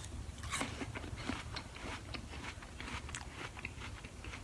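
Person chewing a bite of Cosmic Crisp apple: quiet, irregular crunches and small wet mouth clicks.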